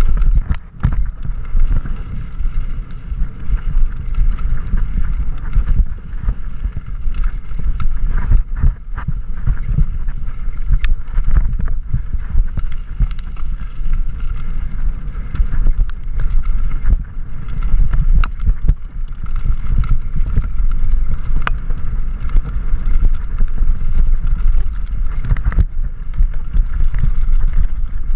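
Wind rushing over a mountain bike rider's action-camera microphone with a heavy low rumble, and frequent clicks and rattles from the bike rolling fast over wooden boardwalk slats and then a rough dirt trail.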